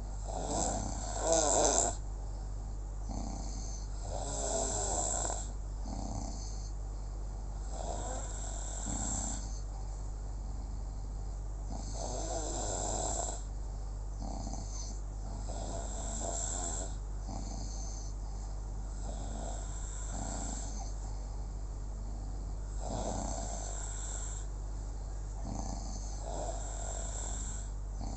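Snoring in sleep, one snoring breath roughly every three and a half to four seconds, about eight in all, the first the loudest. A steady low hum runs underneath.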